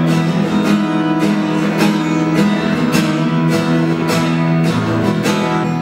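Acoustic guitar strummed in a steady rhythm, about three strums a second, its chords ringing on between strokes.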